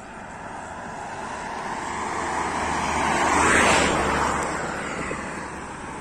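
A car passing by on a highway: its tyre and engine noise grows steadily, is loudest about three and a half seconds in, then fades as it goes away.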